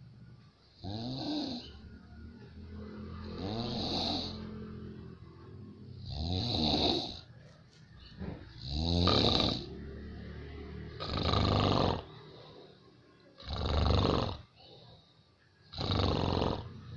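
A sleeping person snoring heavily: about seven loud, rasping snores, one every two to three seconds, a sound likened to a helicopter.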